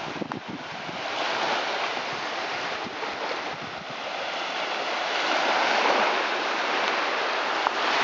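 Small surf breaking and washing onto a shallow sandy shore, a steady rush that swells louder as waves come in, about a second in and again around five to six seconds in.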